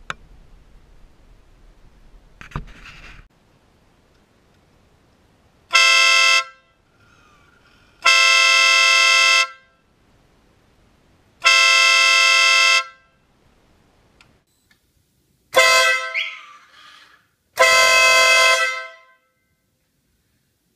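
Aftermarket Stebel air horn on a motorcycle sounding five loud blasts, two short and three held for about a second and a half.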